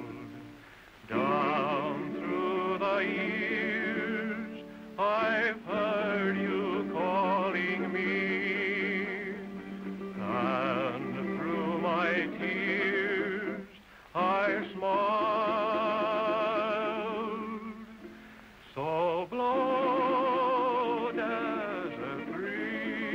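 A voice singing a slow song, holding long notes with heavy vibrato, the phrases broken by short breaths every few seconds.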